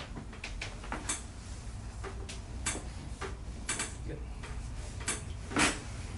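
Scattered clicks and knocks from chiropractic adjustments on a treatment table, with one louder knock about five and a half seconds in.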